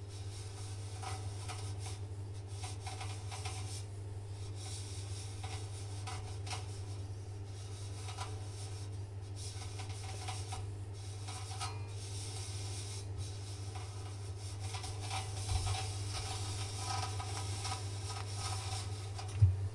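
Irregular rubbing and scraping strokes against the metal drum of an LG washing machine, where it has sharp burrs, over a steady low hum. A single sharp knock near the end.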